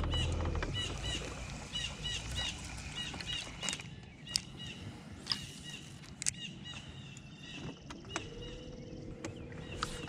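A bird chirps over and over through the first part, with a few sharp clicks. Near the end an electric trolling motor whines up to a steady hum.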